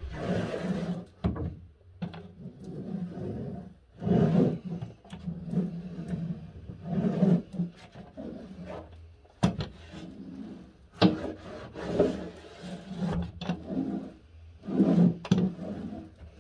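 Small hand pressure roller rolled back and forth over a cork sheet on a wooden baseboard, pressing it into contact adhesive. It comes as repeated rolling strokes about one to two seconds apart, with a few sharp knocks on the wood in the second half.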